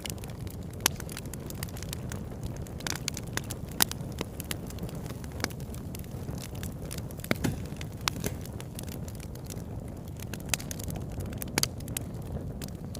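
Wood fire crackling, with sharp irregular pops, a few louder than the rest, over a steady low rumble.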